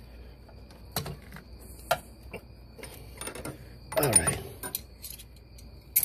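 Wrenches clicking and clinking against the steel brake line flare nuts of an ABS hydraulic unit as they are fitted and tightened, in scattered sharp knocks, with a louder metallic clatter about four seconds in.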